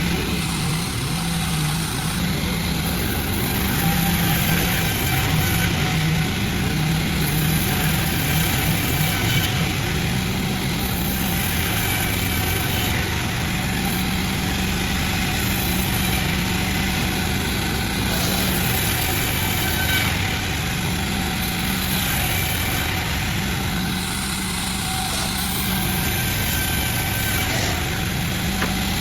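Sawmill machinery running steadily: a continuous engine-driven drone with a hissing noise over it, and no clear starts or stops.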